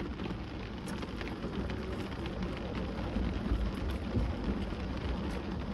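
Rain pattering steadily on a car's roof and windows, heard from inside the cabin as an even hiss with faint scattered ticks.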